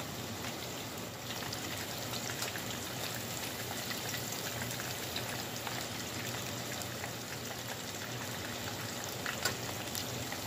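Panko-breaded shrimp deep-frying in hot vegetable oil: a steady sizzle with scattered small crackles and pops, and one louder snap near the end.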